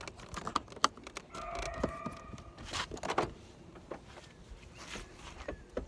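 Plastic car door trim pieces being pressed and snapped back into place, a run of light clicks and taps. A brief steady whine about a second and a half in.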